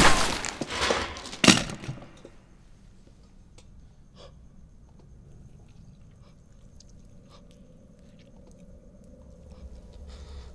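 A single loud revolver shot goes off in a game of Russian roulette: the chamber was loaded. About a second and a half later comes a second sharp hit. After that there is only a low, quiet hush with a few faint ticks.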